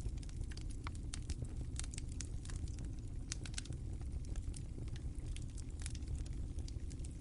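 Fire crackling: irregular sharp pops and snaps, several a second, over a low steady rumble of the flames.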